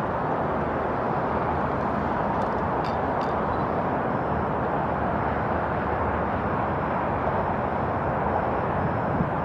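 Steady outdoor rushing noise at an even level, with a couple of faint ticks about two and three seconds in.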